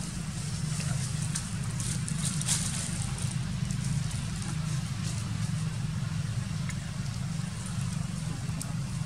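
Steady low rumble with a faint hiss over it and a few small clicks here and there.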